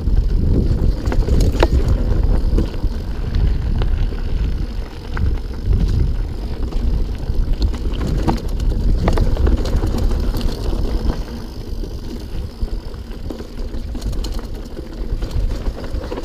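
Mountain bike rattling down a rocky trail: tyres on loose stones and the frame and chain clattering, with many sharp knocks, over a constant low rumble of wind and vibration on the action camera's microphone.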